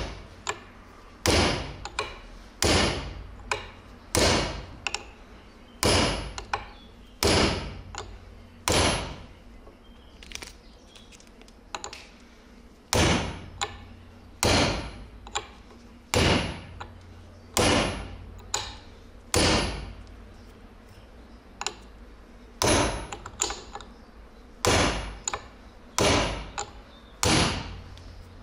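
Hammer blows on a steel flat chisel, driving the old steering-head bearing's inner race off a motorcycle steering stem. Sharp metal strikes come about every one and a half seconds, with two pauses of a few seconds.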